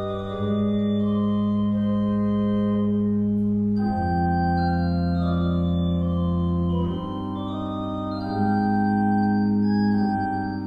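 Baroque-style pipe organ improvising in full sustained chords over a strong held bass, the harmony moving to a new chord every few seconds.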